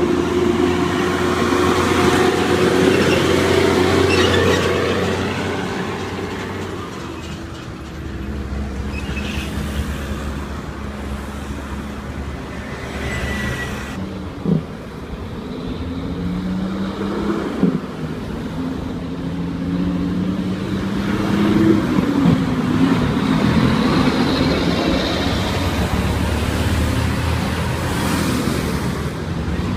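Heavy diesel trucks driving past. One engine runs strongly and fades away in the first half. In the second half another pulls away, its pitch rising several times as it works up through the gears, with two short knocks.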